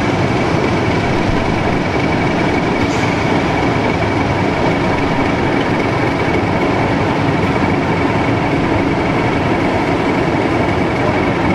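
Class 31 diesel-electric locomotive idling close by, a steady low engine din with a thin high whine held over it.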